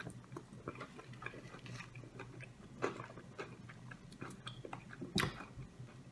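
Close-miked chewing and wet mouth sounds of someone eating fried chicken food, made up of many small scattered clicks with a louder click or bite near 3 s and another just after 5 s.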